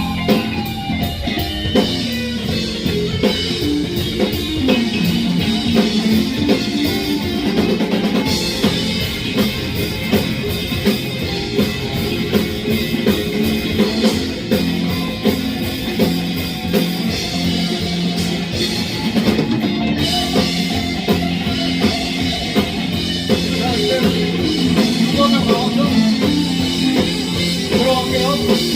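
A live band playing a rock-style song with a drum kit keeping a steady beat and guitar.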